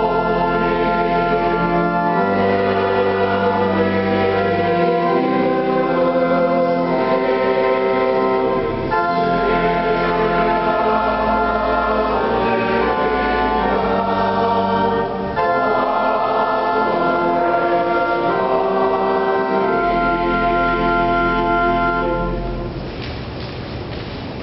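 Organ accompanying voices singing a hymn, with long held chords over a moving bass line. The music ends near the end, leaving quieter room sound.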